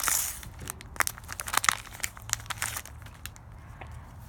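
Plastic wrapper of a baseball card pack crinkling and tearing as it is ripped open by hand, a dense run of crackles over about three seconds that thins out near the end.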